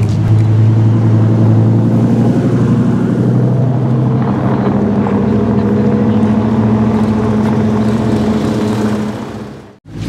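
Dodge Viper SRT-10 ACR's 8.4-litre V10 running at low revs as the car rolls slowly, a steady deep exhaust note. The sound fades out just before the end.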